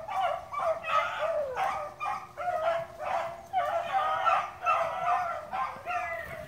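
Dogs barking in quick, repeated calls, about two a second, some overlapping at different pitches, as from more than one dog.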